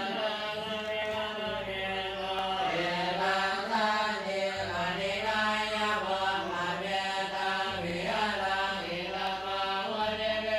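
Buddhist monks chanting together: a droning group recitation, held on long tones that rise and fall in pitch.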